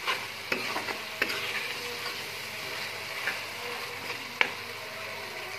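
Tomato-and-fenugreek masala frying in ghee in a metal pan, stirred with a spoon: a steady sizzle with a few sharp clicks of the spoon against the pan. The masala is being fried through before the dal goes in.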